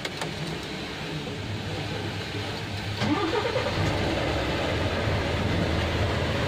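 A Volvo 500 truck's diesel engine is started about three seconds in: a short rising whine as it catches, then it settles into a steady low idle.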